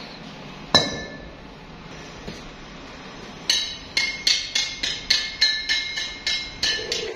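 Hammer striking metal with a ringing clang: a single blow about a second in, then a quick run of about a dozen blows, roughly three a second.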